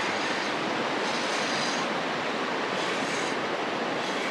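A steady rushing hiss, like wind or moving water, with two brief brighter swells about a second and three seconds in.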